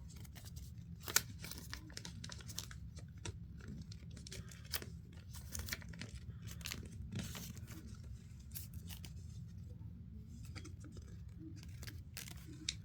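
Sheet of paper being folded and creased by hand: scattered crinkles and crackles of the paper, over a low steady hum.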